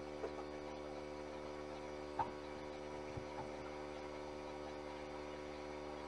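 Steady electrical hum, with a few faint knocks from hands handling parts, the clearest about two seconds in.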